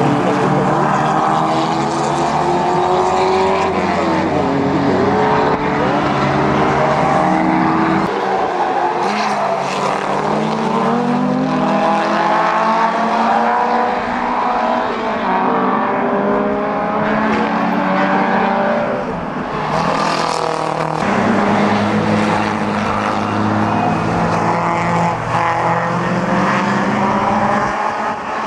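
Historic 1960s racing cars' engines, a Porsche 356 among them, running hard past the trackside one after another, their pitch climbing under acceleration and falling away as they lift and pass.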